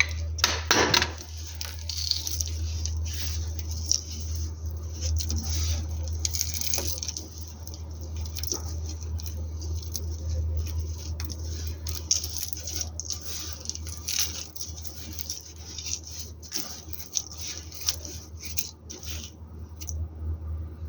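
Knife cutting through bars of soap into cubes: a continuous run of crisp cracks, scrapes and crumbling, over a low steady hum.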